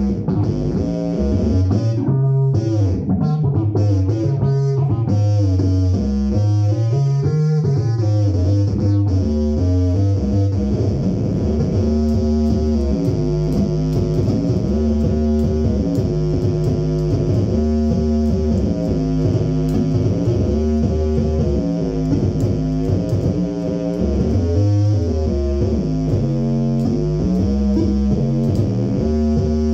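Fretless four-string electric bass played fingerstyle through a Phil Jones Bass amplifier: a slow improvised line of held notes, low notes under higher ones, some sliding in pitch.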